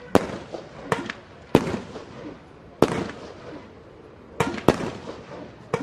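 Fireworks going off: about seven sharp bangs in quick, uneven succession, each followed by a short crackling tail.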